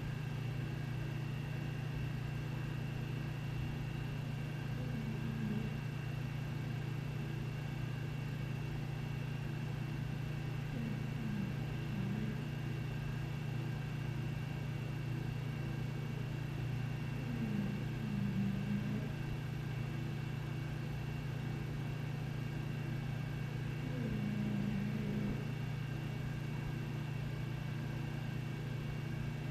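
English bulldog snoring, a short low snore roughly every six seconds, over a steady low hum.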